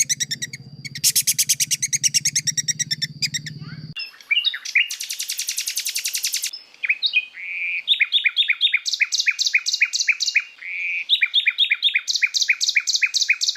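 Recorded songs of several songbird species spliced one after another: first a fast dense trill over a low hum that cuts off about four seconds in, then a very fast buzzy trill, then long runs of sharp repeated notes about four a second. It is a masteran mix used to teach caged birds new songs.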